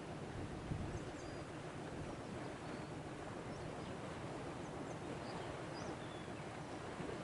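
Steady rush of sea and wind at the shore, with several faint, short high bird chirps and a soft bump just under a second in.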